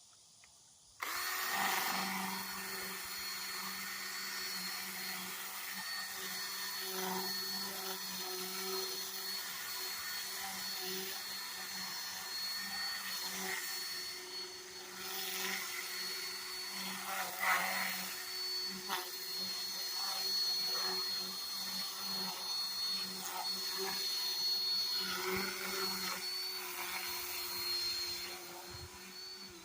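Power tool spinning a Sand-O-Flex brush-backed flap sanding wheel against carved wood. The motor starts about a second in and runs steadily, with a scratchy, rising and falling sanding noise as the flaps work the surface.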